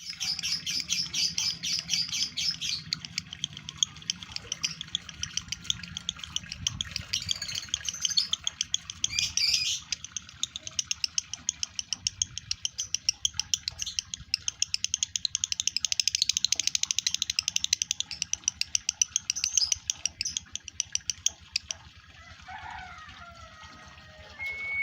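Male lovebird in breeding condition singing a long, rapid chattering string of high chirps, with brief breaks about 3 and 10 seconds in. The chatter stops a few seconds before the end, leaving a few softer, lower gliding calls.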